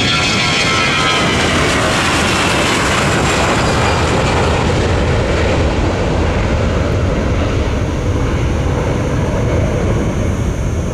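Airbus A321 jet airliner's twin engines at takeoff thrust as it lifts off and climbs away: a loud, steady roar, with high whining tones falling in pitch over the first few seconds.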